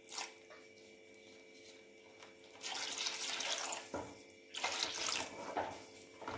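A spoon stirring watery masala gravy in a metal pot: wet swishing and sloshing in several strokes, the longest starting about two and a half seconds in, then shorter ones near the end.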